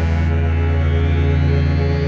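Drone ambient synthesizer music: a dense, steady drone of sustained tones over a fast-pulsing bass, with a faint high tone slowly rising.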